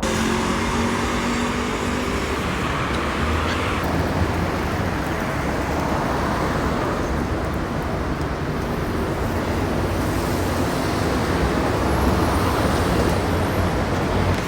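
Steady road traffic noise, a continuous hiss of passing vehicles.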